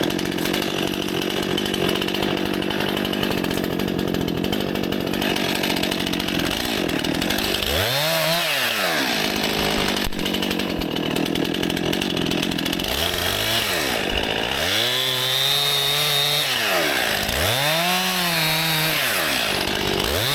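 Stihl MS261 C-M two-stroke chainsaw running steadily for about the first seven seconds, typical of the chain cutting into wood. It is then revved up and let back down four times, the pitch rising and falling with each rev.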